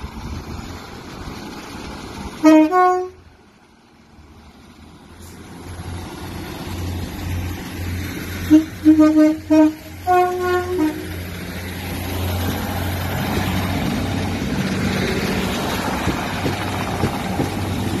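Class 156 Sprinter diesel multiple unit sounding its two-tone horn, a short low note stepping up to a high note about two and a half seconds in. About nine seconds in comes a quick run of three short low blasts and then a high note. After that the diesel engine's drone grows steadily louder as the unit passes close by.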